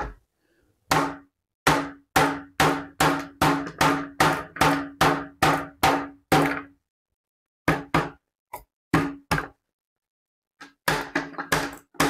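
Batoning a folding knife into a block of 2x4: a length of 2x4 knocks down on the knife's spine again and again, sharp wooden knocks about two to three a second, each with a short low ring. They come in three runs with short pauses between, as the blade wedges in the wood on a knot.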